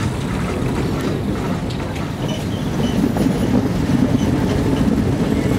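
Diesel-hauled passenger train running along the line, heard from an open carriage window: a steady rumble of wheels on the rails with rushing air, growing louder about halfway through.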